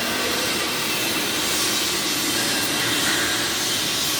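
TIG welding arc giving a steady, even hiss with no breaks.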